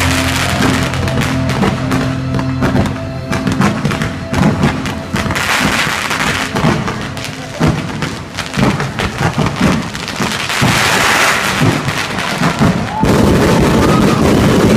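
Aerial fireworks going off in rapid bangs and thuds, with swells of crackling from the bursting shells. Music with held notes plays underneath, plainest in the first few seconds.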